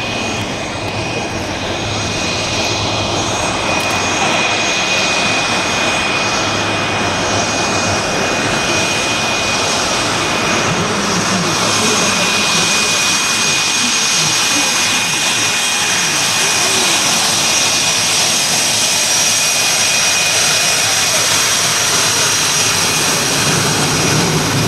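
CF-18 Hornet's twin turbofan jet engines running at low power, a steady rushing roar with a high turbine whine of several held tones, growing slightly louder over the first dozen seconds.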